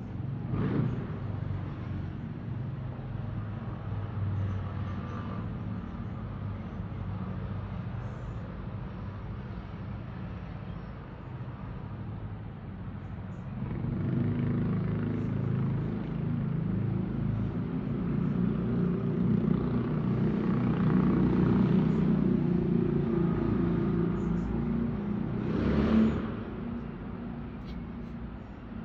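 Steady rumble of city road traffic. From about halfway a heavier engine grows louder and holds, then drops away after a brief knock near the end.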